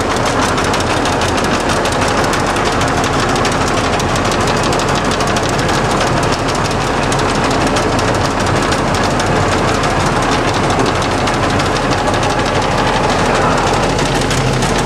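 A 1966 LeBlond 1610 Servo Shift heavy-duty engine lathe running under power, with a loud, steady mechanical clatter from its gear drive.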